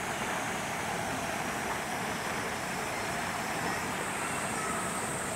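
Steady outdoor background noise: an even hiss with a faint, steady high-pitched whine above it.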